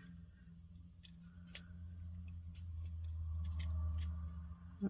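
Utility knife blade nicking small notches into the end of a paper straw: a string of short, crisp clicks, about six, with a low hum swelling and fading under them.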